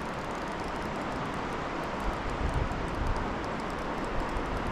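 Steady rushing of a mountain trout river, with a few low rumbling thumps about halfway through.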